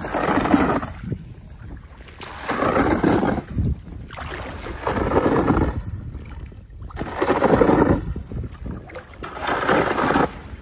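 Boots wading through shallow, icy water, a slosh with each step, five times at roughly two-second intervals.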